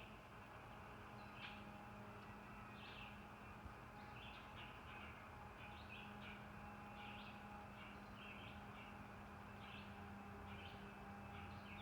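Birds chirping in the distance: many short, high chirps repeating irregularly throughout, over a faint steady low hum.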